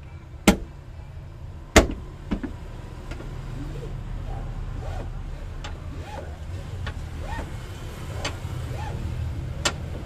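Sharp clicks and knocks of a plastic seatbelt retractor cover and seatbelt hardware being handled, two loud ones in the first two seconds and fainter ones scattered after, over a low steady rumble that grows a little louder from about three seconds in.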